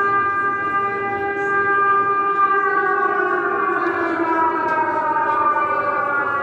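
Air raid siren wailing steadily, its several stacked tones sagging in pitch midway through and climbing back toward the end.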